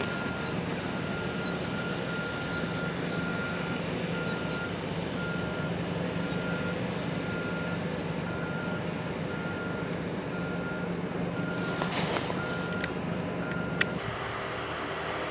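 Backup alarm on heavy demolition equipment, beeping steadily about once a second over an engine running. There is a short burst of noise about twelve seconds in, and the beeping stops near the end.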